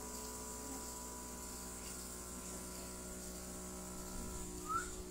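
Airbrush makeup compressor running with a steady hum and a faint hiss of air. A brief high squeak comes near the end.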